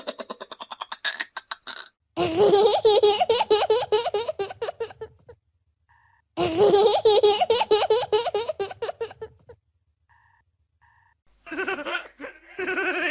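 Children laughing in several separate bursts of rapid, high-pitched giggling, each about two to three seconds long, with short silent gaps between them.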